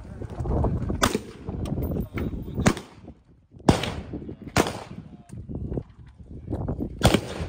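Gunshots on a shooting range: five sharp cracks at uneven intervals, the loudest about midway, over a low rumbling background.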